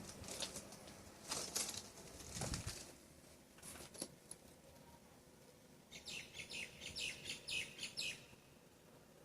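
Rustling and scraping handling noises with a few clicks, then a quick run of about a dozen high chirps for about two seconds near the end.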